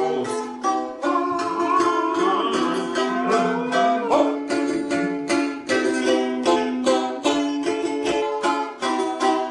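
Several balalaikas strummed together in quick, evenly repeated strokes over a steady held note, with some pitches sliding up and down during the first few seconds.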